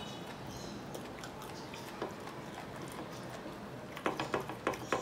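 Eating rice and mutton by hand: faint chewing and small clicks, then, about four seconds in, a quick run of sharp clicks and taps as fingers scrape food together on the plate.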